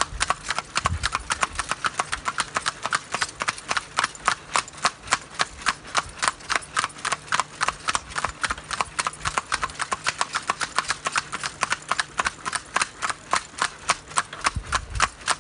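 Pair of carriage horses trotting on an asphalt road: a quick, even clip-clop of hooves, about five or six strikes a second.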